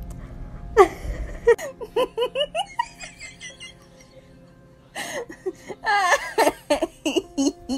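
Giggling laughter in two bouts, the first about a second in and the second about five seconds in, over background music.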